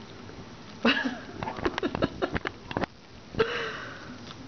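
Baby gray squirrels chewing food: a run of small sharp clicks and crunches lasting about a second and a half, between two short breathy sounds, one about a second in and one near the end.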